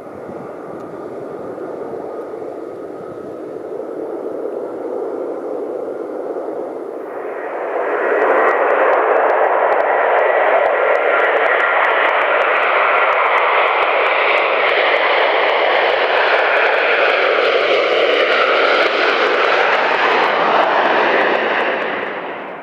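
Airbus A330-300's twin Rolls-Royce Trent 700 engines at take-off thrust, a steady jet roar. It grows much louder about a third of the way in as the airliner rolls and lifts off past the listener. The tone shifts and sweeps while it passes, then fades near the end as it climbs away.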